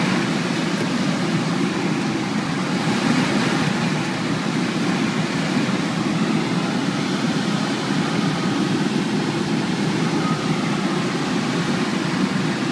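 Steady rush of airflow inside the cockpit of an SZD-50-3 Puchacz two-seat glider climbing on aerotow, an even, unbroken noise with a low drone under it.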